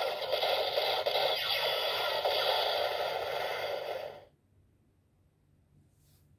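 DX Zero-Two Driver toy belt playing a sound effect through its small built-in speaker: a harsh, tinny rushing noise that cuts off about four seconds in as the core light goes dark.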